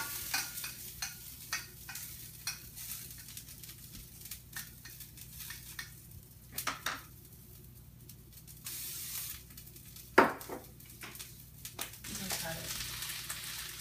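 Chopped garlic sizzling in olive oil in a hot skillet, stirred with a spatula that clicks and scrapes against the pan, with one sharp knock about ten seconds in. The pan is on medium, which is a bit too high.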